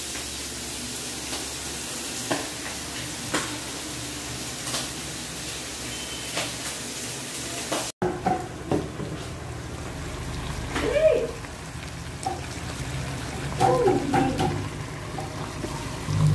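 Pork belly frying in hot oil in a pan: a steady sizzle with scattered pops of spitting oil. About eight seconds in the sound cuts to a quieter pan of pork cooking in its sauce, with a couple of short tonal sounds.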